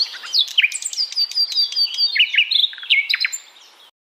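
Birds chirping: a busy run of short, high chirps and quick whistled sweeps, some falling in pitch, that cuts off abruptly near the end.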